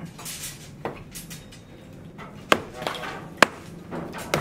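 Several sharp, irregular knocks, about five in all, the loudest about two and a half and three and a half seconds in, with a short scraping hiss just after the start.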